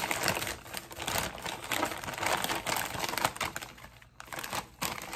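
Crinkling and crackling of a foil chip bag as it is handled and opened. A dense run of crackles thins out toward the end.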